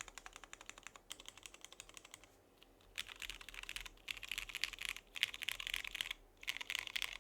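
Typing on a Monokei x TGR Tomo mechanical keyboard with lubed and filmed Cherry MX Ultraglide Black linear switches, an aluminium plate and PBT keycaps: fast runs of keystrokes. They are lighter for the first two seconds, then louder from about three seconds in, with short pauses between the bursts.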